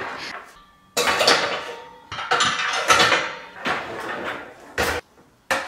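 Removable electric-grill plates being set into a dishwasher's wire rack: several clattering knocks and rattles of metal plates against the rack.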